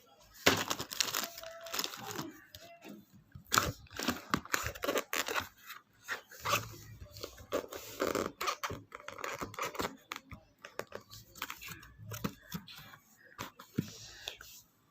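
Science-kit parts being packed back into their box by hand: irregular rustling and crinkling of plastic packets and cardboard, with small clicks and knocks of the pieces.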